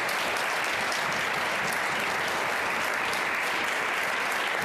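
A room of senators applauding: steady clapping by many hands.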